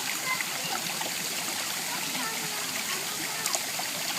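Garden waterfall running: a steady rush and splash of falling water.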